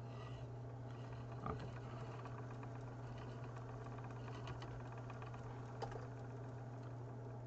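Magpie Daedalus electric spinning wheel running with its flyer whirling: a faint steady mechanical running sound with scattered light ticks.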